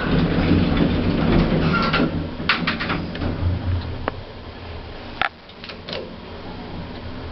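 Hotel service lift closing up and setting off: a rattle of knocks and clicks as the doors shut, over a low steady hum of the lift's machinery, with a single sharp click a little after five seconds and a quieter hum after it as the car travels.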